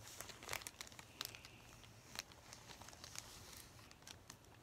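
Faint crinkling and rustling of a plastic zip-top bag being handled, with scattered small clicks as a straw is worked into the powder inside.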